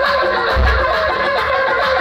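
DJ dance music played loud, with a wavering melodic lead over deep bass thumps; a bass hit comes about half a second in.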